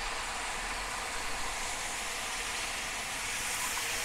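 Steady sizzle of onions and mushrooms frying in clarified butter in a hot cast-iron pan while cream is poured in to deglaze it.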